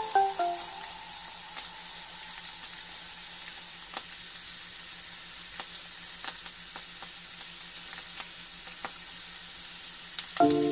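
Pork pieces and garlic frying in hot oil in a nonstick pan: a steady sizzle with scattered crackling pops.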